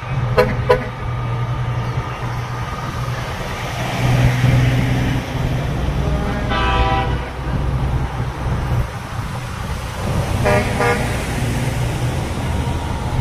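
Trucks running past with a steady low engine rumble while their horns toot: two short toots at the start, one longer blast about halfway through, and two more short toots near the end.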